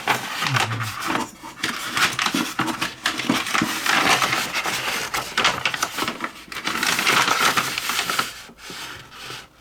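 Paper rustling and rubbing, with small clicks of little objects being pushed around on a workbench, as someone rummages by hand for a lost small part.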